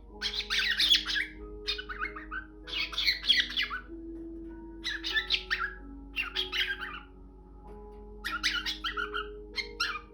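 Cockatiel squawking and chattering in about six harsh, rapid bursts with short pauses between them, over soft background music with a mallet-like melody.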